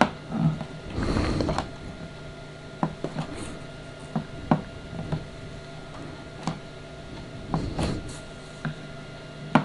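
Handheld transmission densitometer being pressed down onto patches of a film tone scale, giving scattered sharp clicks a second or so apart, with brief rustling of the film as it is moved, over a faint steady hum.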